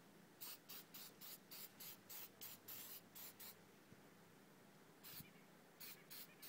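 Aerosol can of silicone spray let off in quick short hisses through its straw, about a dozen in the first three seconds and a few more near the end, misting the outboard's spark plug boots and ignition wires.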